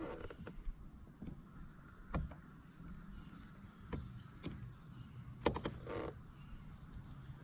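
Insects calling in a steady high-pitched chorus, with a few light knocks scattered through it.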